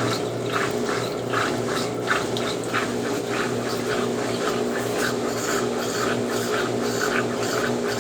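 Consul Facilite 10 kg top-loading washing machine in its wash stage: the motor hums steadily while the agitation swishes water and linens in a steady rhythm, a few strokes a second.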